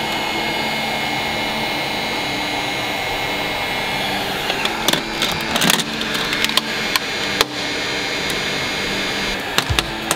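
Electric heat gun blowing steadily while heating the rear hatch glass to lift old window tint. From about four and a half seconds in, irregular crackles and snaps come in over it as the old film is peeled away.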